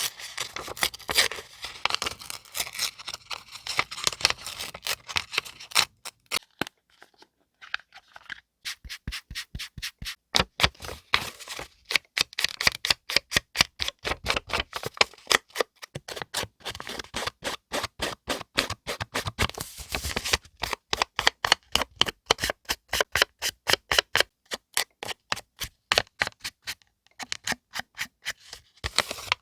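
Paper crinkling and rustling while being handled, then after a short pause a long run of quick, crisp taps, about four a second, from craft work on paper.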